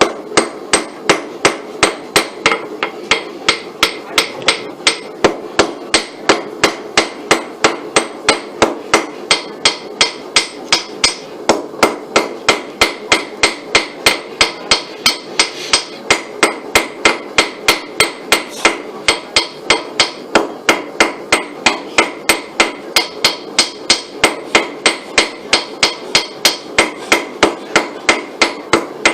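Blacksmith's hammer striking hot steel on an anvil in a steady rhythm of about three blows a second, each blow ringing, as the tip of the bar is drawn to a point.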